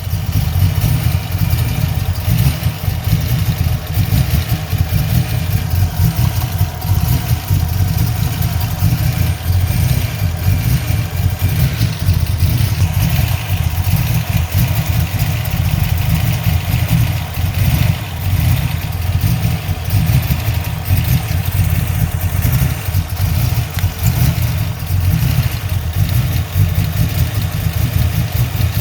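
A 347 cubic-inch V8 running with a misfire, its exhaust note choppy and uneven. The owner wonders whether a vacuum leak is the cause.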